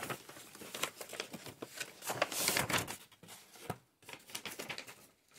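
Tissue paper rustling and crinkling as it is folded back and handled, loudest in a dense crumple a little past two seconds in, then thinning to lighter, scattered paper sounds.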